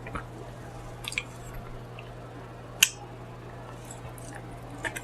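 Quiet mouth sounds of eating: a few short wet smacks and clicks while chewing, the sharpest a little before three seconds in, over a steady low hum.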